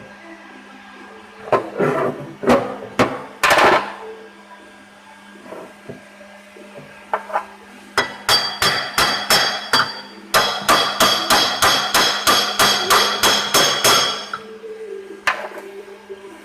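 Hammer blows on metal tapping the crankshaft of a Hyosung Karior 150 scooter engine home into its crankcase. A few separate ringing strikes come first, then a fast even run of taps, about four a second, and a single last blow near the end. A steady low hum sits underneath.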